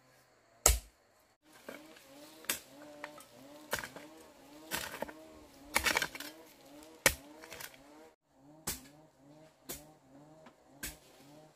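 Digging by hand with a hoe: about ten sharp strikes into the ground, roughly one a second, over a faint repeating low call.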